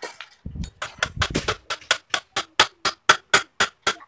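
Hammer knocking on the sofa's wooden frame, likely driving nails: a second or so of uneven knocks and thumps, then a steady run of sharp blows about four a second.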